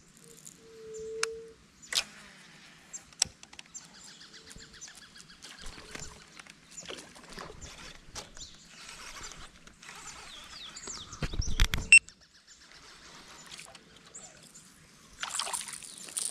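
Scattered clicks and knocks from a fishing kayak and its gear, over faint water sounds. A louder cluster of knocks comes about eleven seconds in.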